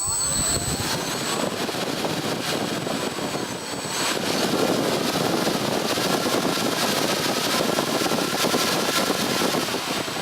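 Brushless electric motor of a foam RC flying-wing plane spinning its propeller at speed, a loud, steady whir. Its pitch rises in the first second as it spins up.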